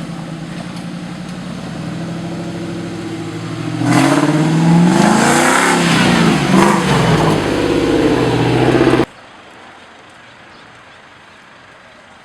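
Off-road 4x4's engine running steadily, then revving hard from about four seconds in, its pitch rising and falling; the sound cuts off suddenly about nine seconds in, leaving only a quiet background.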